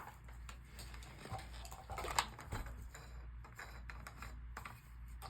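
Scattered light clicks and knocks from a phone being handled and propped up on a makeshift stand, close to its microphone. The loudest knock comes about two seconds in.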